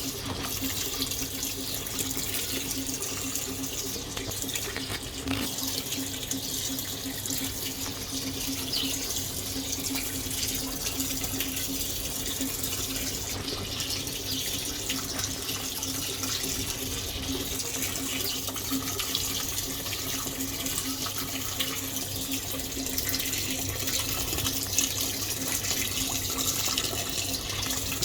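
Fisher & Paykel MW511 top-loading washing machine running with water pouring steadily into the tub, over a steady low hum.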